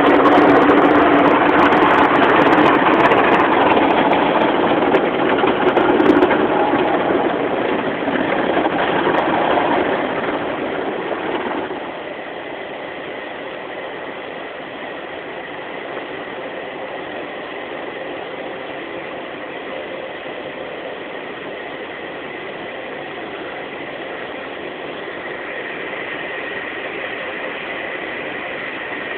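Automatic car wash heard from inside the car: a steady rushing hiss of water spray and wash machinery working over the car body. It is loud for about the first twelve seconds, then drops to a quieter steady hiss with a faint high whine that grows a little near the end.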